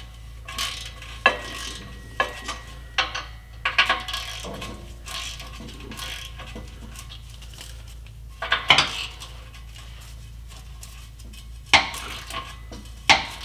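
Ratchet and socket working the 15 mm exhaust flange nuts off the back of a diesel particulate filter: irregular metallic clicks and clinks of the ratchet and socket on the nuts and flange, with louder clanks about nine seconds in and twice near the end.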